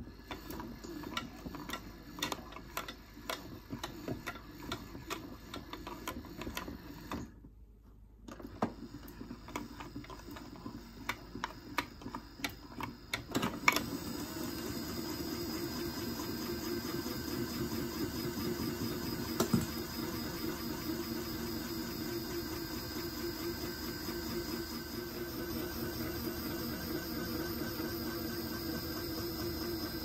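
1970s Casdon toy washing machine's small electric motor turning the drum, with irregular clicking and knocking and a brief pause about a quarter of the way in. Just before halfway the drum settles into a steady whirring spin: the final spin cycle.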